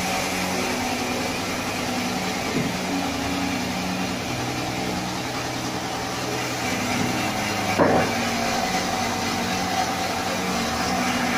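Band sawmill machinery running steadily between cuts, a level mechanical hum, with a single sharp knock about eight seconds in.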